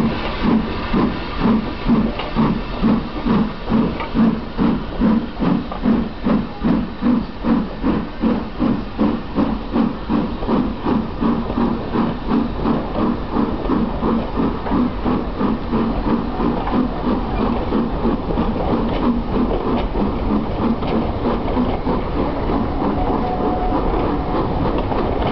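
Steam locomotive pulling a train away, its exhaust chuffing about twice a second. The chuffs fade about two-thirds of the way through, leaving the steady rumble and clatter of the coaches rolling past.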